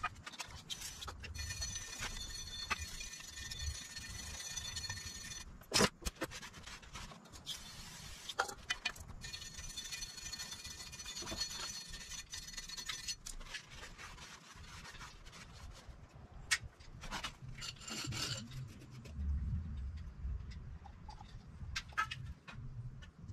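Metal car parts and hand tools being handled, scraping and rubbing with a few sharp clanks, as the brake rotor is picked up and worked back toward the front hub. A steady high whine of several tones sounds twice, each time for about four seconds.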